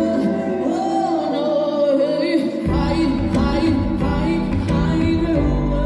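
Pop song with a high solo singing voice over keyboards; the bass is gone at first, then comes back in with the beat about two and a half seconds in.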